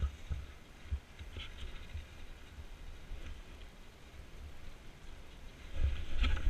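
Skis sliding downhill over snow, heard through a GoPro worn by the skier: a low hiss with dull thumps from bumps and wind on the camera, growing louder near the end.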